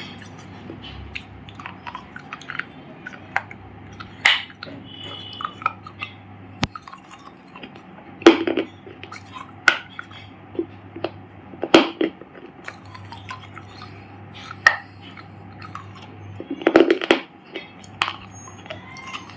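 Dried clay crunching and crumbling in irregular sharp crackles and snaps. Louder crunches come every few seconds, and a dense cluster of them comes about 17 seconds in.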